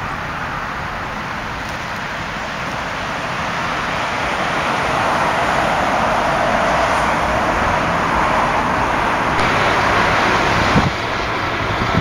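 Road traffic passing: a steady hiss of tyres and engines that grows louder over several seconds, then drops suddenly near the end.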